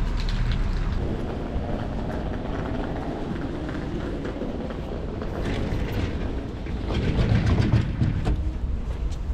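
Street ambience with a steady low rumble of traffic, and footsteps with light clicks in the second half, growing louder near the end.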